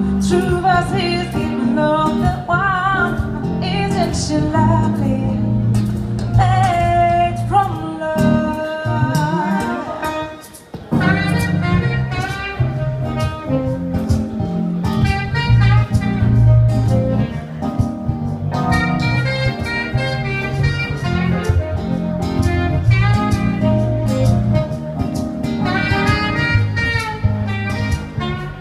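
Live acoustic band playing: a woman singing over acoustic guitar, keyboard and saxophone, with a brief pause about ten seconds in.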